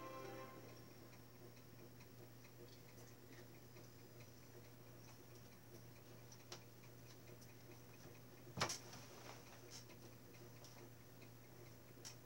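Near silence: a steady low hum with a few faint scattered clicks, the loudest about two-thirds of the way in, after the tail of a music sting fades out at the very start.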